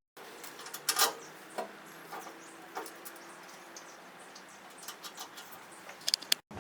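Scattered light clicks and taps of small metal parts being handled as a replacement shear bolt is fitted into a snow blower's auger shaft, with a cluster of quick clicks near the end, over a faint steady hum.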